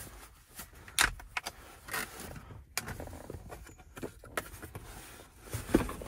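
Hard plastic carrying case being unlatched and opened: a string of clicks and knocks as the latches are flipped open and the lid is lifted, the loudest knock near the end.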